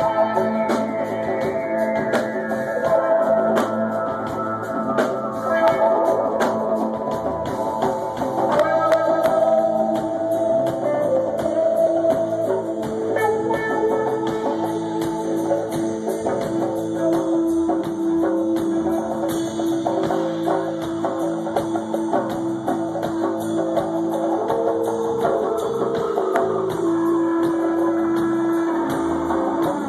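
A live rock band playing: electric guitar, keyboard and drums.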